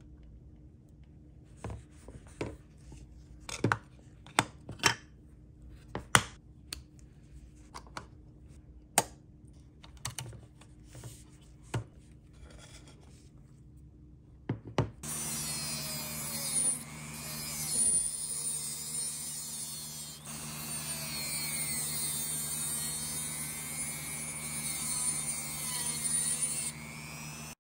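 Sharp clicks and taps of small diecast model-truck parts being handled and fitted. Then, about halfway through, a rotary tool with a cutoff disc starts cutting a thin metal tube: a steady motor hum with a harsh grinding hiss, louder than the clicks.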